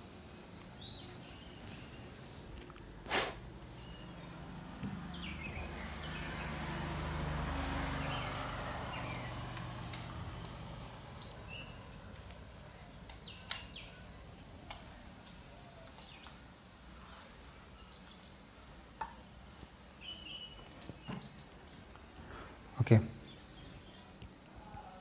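Steady high chirring of insects, swelling and fading slowly, with the soft rubbing of a duster erasing a whiteboard in the middle. Two sharp knocks, about three seconds in and near the end.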